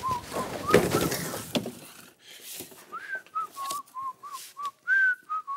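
A tune whistled in short, bending notes. Over the first two seconds it sits under a clatter and rustle of objects being handled.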